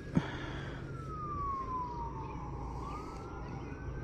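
Emergency-vehicle siren in a slow wail, its pitch sliding down over about two and a half seconds and then climbing back up. A sharp click just after the start.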